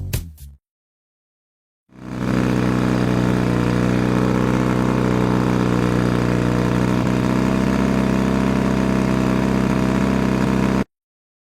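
Steady low engine drone that fades in about two seconds in, holds at an even pitch, and cuts off abruptly near the end.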